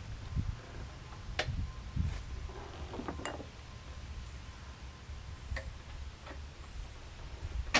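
A few scattered sharp metal clicks and taps from hand work on a small lawnmower engine, the loudest near the end, over a low, uneven rumble.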